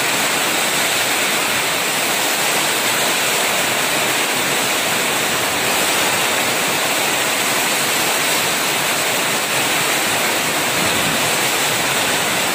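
Heavy rain pouring down in strong wind, a loud, steady rush of rain.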